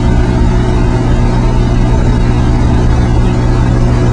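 Automatic dual-torch pipeline welding rig running during a cap pass: a loud, steady machine drone, with a constant low hum and steady overtones under a hiss.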